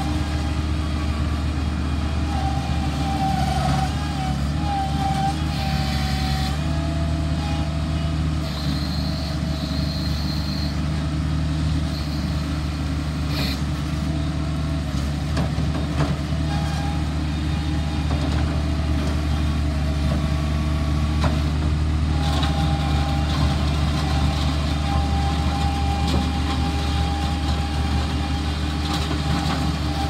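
Bobcat MT55 mini track loader's diesel engine running steadily under load, with a higher whine from the hydraulics that wavers and comes and goes as the loader digs and lifts its bucket.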